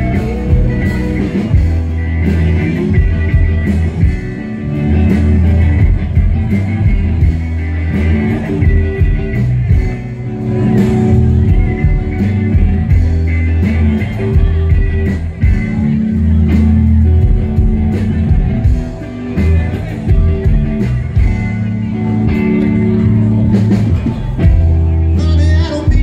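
Music with a deep bass line and singing.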